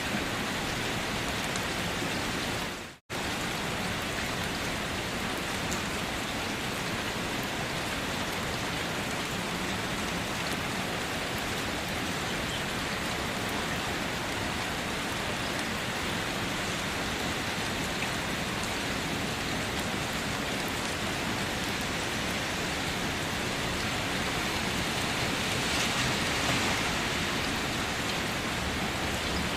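Steady rain falling, an even hiss. About three seconds in it fades out to silence for an instant and then cuts straight back in, as at the join of a looped recording.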